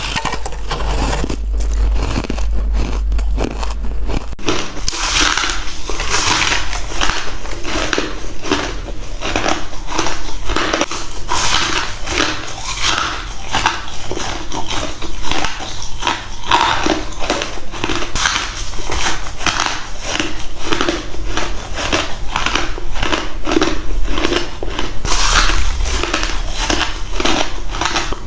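Clear ice cubes being bitten and chewed close to the microphone: a steady run of loud crunches, a few a second.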